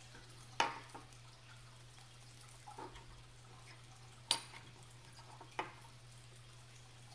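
A handful of small, sharp metallic clicks and clinks from handling a steel wristwatch and its parts, the loudest about four seconds in, over a steady low hum.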